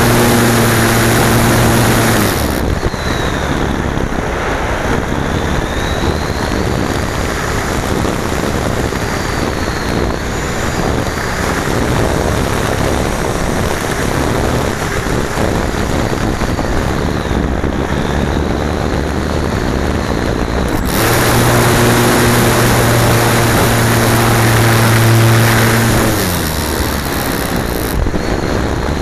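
Airflow rushing over a key-fob camera riding on an RC slope-soaring glider in flight. A low, steady buzz runs over it for the first couple of seconds and again from about 21 s to 26 s, dropping in pitch as it fades away.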